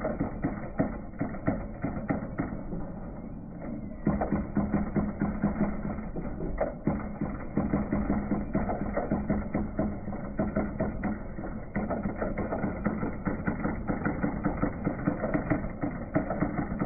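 NEC Spinwriter 7720 thimble printer printing, its hammer striking the print thimble as a dense, rapid clatter over a steady low hum. The sound is slowed down and lowered in pitch along with the slow-motion footage. It eases briefly about two to four seconds in.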